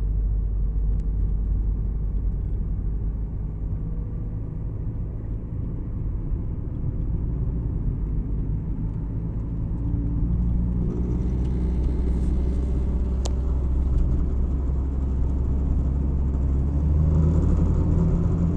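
Car engine and road noise heard from inside the cabin while driving: a steady low rumble that grows louder about ten seconds in and again near the end.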